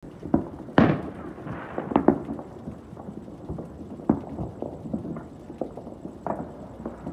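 Fireworks going off in every direction: about ten irregular bangs and pops, the loudest about a second in and again near two seconds in, each followed by a short echo.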